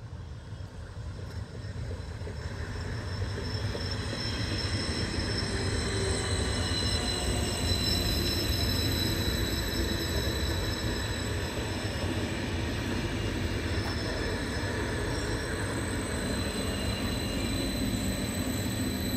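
ODEG Stadler KISS double-deck electric multiple unit approaching and passing close by. Its rolling rumble grows over the first few seconds and then holds steady, with steady high-pitched whines over it.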